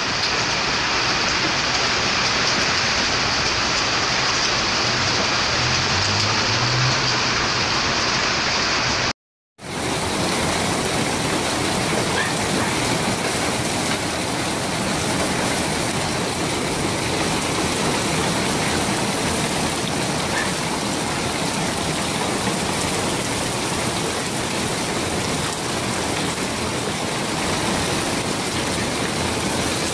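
A downpour of rain and hail: a dense, steady hiss of falling drops and stones. It cuts out for a moment about nine seconds in, then the same downpour resumes.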